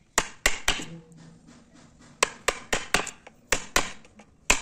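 A wood chisel being struck to chop out a notch in a softwood board: sharp knocks in quick runs of three or four, about eleven in all.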